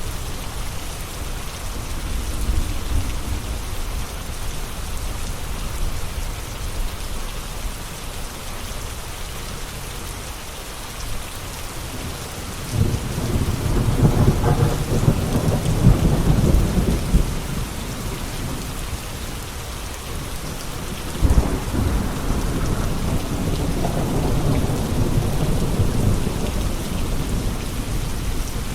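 Steady rain falling, with two long rolls of thunder: one starts suddenly about halfway through and rumbles for several seconds, and a second breaks in about two-thirds of the way through and rolls on for several seconds more.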